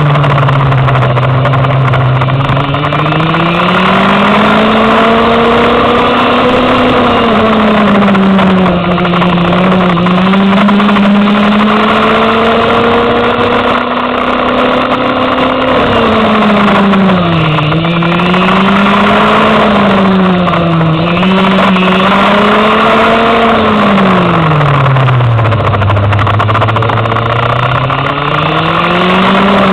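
Go-kart engine heard onboard at full race pace. Its pitch drops as it slows into corners and climbs again on the straights, with several quick dips in the middle and a long, deep dip near the end before it rises again.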